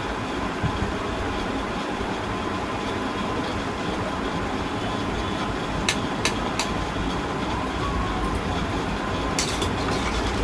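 Steady rushing noise, with a few sharp clicks, typical of a utensil against a cooking pot, about six seconds in and again near the end.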